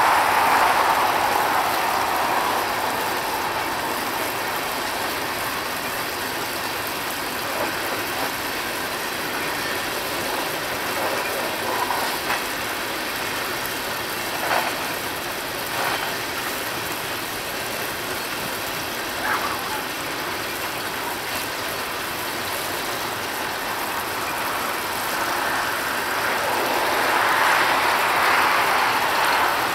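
Coal train's hopper cars rolling past: a steady rumble and clatter of steel wheels on the rail, with a few short sharp clanks in the middle. A road car passes close by at the start and another near the end, each swelling briefly over the train.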